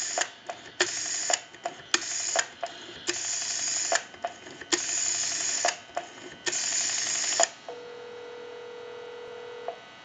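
A rotary dial on a monophone telephone pulsing out a number over an amplified phone line: five runs of rapid dial-pulse clicks as the dial returns, each under a second, with small clicks between them as the finger winds the dial. About seven and a half seconds in, a steady ringback tone sounds for about two seconds as the dialled call rings through.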